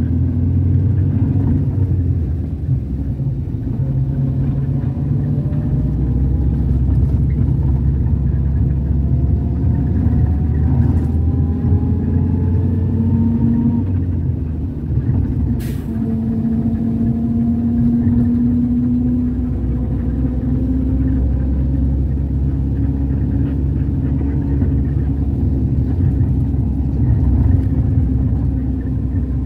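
Car engine and road noise heard from inside a moving car: a steady low rumble, with a faint engine whine that glides up in pitch several times as the car gathers speed. A single sharp click comes about halfway through.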